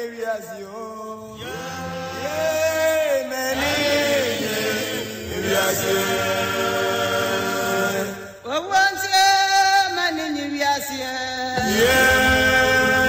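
Chant-like singing: long held notes that slide in pitch, in phrases that break off every few seconds.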